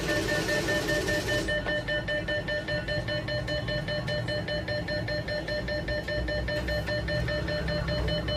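NCR cash machine beeping, a rapid steady run of repeated high beeps, as it presents banknotes at the dispenser slot. A noisy whirr from the machine stops about one and a half seconds in.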